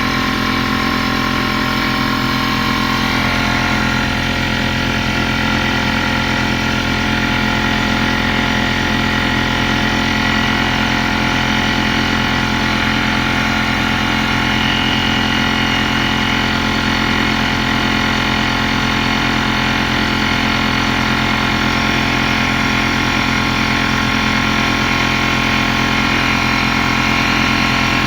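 Porter-Cable pancake air compressor running steadily, its motor and pump building pressure in the tank, with a slight shift in tone about three seconds in.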